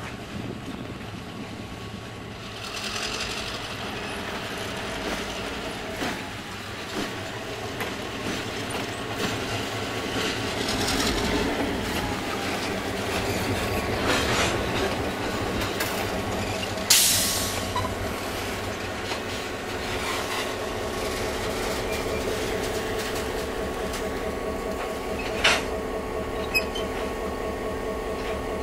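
EMD 567 V16 diesel prime mover of a GP9RM road-switcher running, getting louder as the locomotive moves a covered hopper car along the track with wheels rolling on the rails. A sharp metallic clank or squeal cuts in a little past halfway, with a smaller one near the end.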